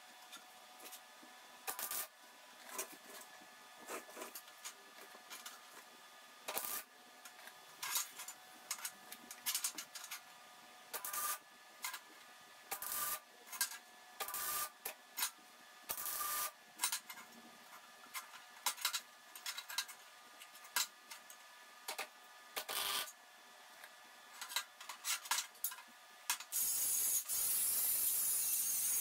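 Steel steam pipe bends being filed and scraped by hand to prep them for welding: irregular rasping strokes with pauses between them. Near the end a handheld power tool starts and runs steadily against the pipe with a hiss.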